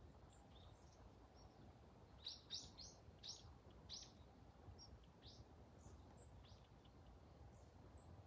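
Faint chirps of small birds: a quick run of about six high chirps two to four seconds in, and scattered single chirps before and after, over a faint low background rumble.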